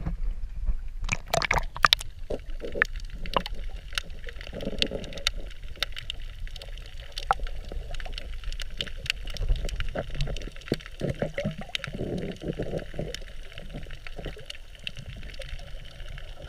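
Water heard through an underwater camera: muffled sloshing and gurgling over a steady low rumble, scattered with short sharp clicks, a louder cluster of them about a second in.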